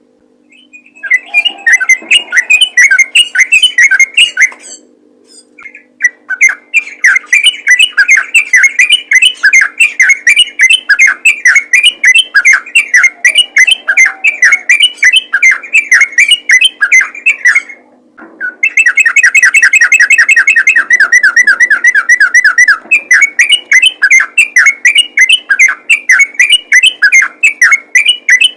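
Sooty-headed bulbul (trucukan) singing vigorously: rapid runs of short, repeated chattering notes with brief pauses. About two-thirds of the way in comes a faster, more even run of notes. A faint steady hum sits underneath.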